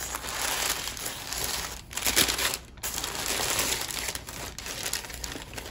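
Paper sandwich wrapper crinkling and rustling as a sub is unwrapped by hand, with a couple of brief pauses.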